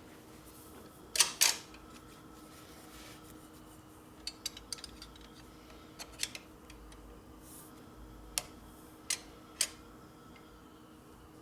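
Sharp clicks and light taps of small metal parts being handled: a hand-bent metal tube and hand tools being worked and set down, two loud clicks about a second in and scattered lighter ones later, over a faint steady hum.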